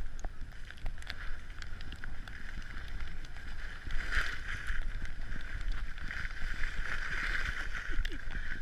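Skis sliding and scraping over packed snow during a run downhill, swelling about four seconds in and again near the end, with wind buffeting the microphone.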